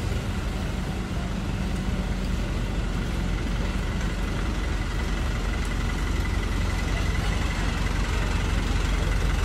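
Steady low rumble of city traffic: car and truck engines idling and creeping along in a slow jam close by.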